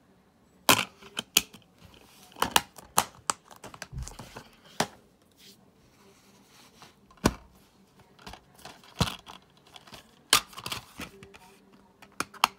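Plastic DVD cases and discs being handled, with irregular sharp clicks and snaps as the cases are opened and shut and a disc is set on its hub.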